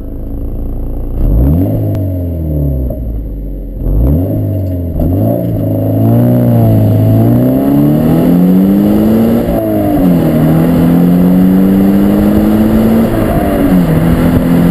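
Subaru BRZ's 2-litre four-cylinder boxer engine heard at its exhaust tip as the car accelerates: the note rises and falls a few times early on, then climbs steadily and drops at two upshifts, about two-thirds of the way through and near the end.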